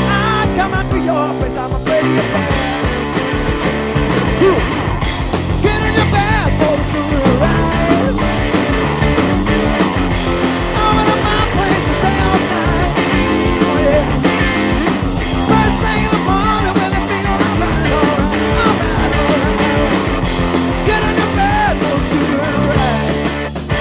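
A hard rock band playing live and loud, with electric guitar, bass and drums.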